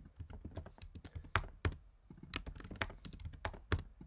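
Typing on a computer keyboard: a quick, irregular run of key clicks, with a few louder key presses among them.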